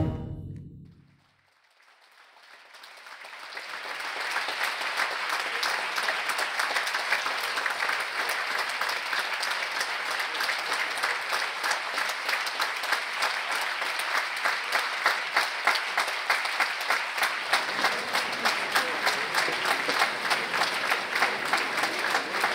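The wind orchestra's final chord rings out and fades within the first second, then after a brief hush an audience's applause swells up about two seconds in and goes on steadily.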